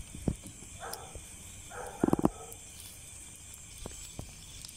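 Insects chirping in a steady high drone, with a single short, loud animal call about two seconds in.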